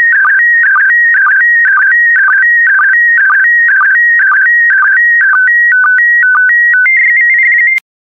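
PD120 slow-scan TV signal: a warbling electronic tone around 1.5–2 kHz, with a regular dip about twice a second as each scan line is sent. Near the end the pattern changes to a few slower tone steps and then a fast warble between two high tones, and the signal cuts off abruptly as the image transmission finishes.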